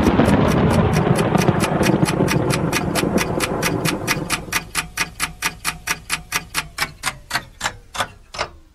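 Sharp, clock-like ticking, about five ticks a second, over a loud rushing noise that fades away by about halfway through. A low tone slides downward near the end.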